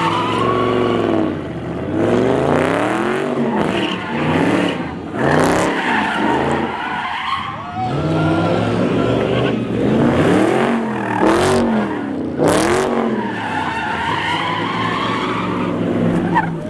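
Dodge Charger Hellcat's supercharged V8 revving up and down over and over while its rear tyres spin and squeal through donuts.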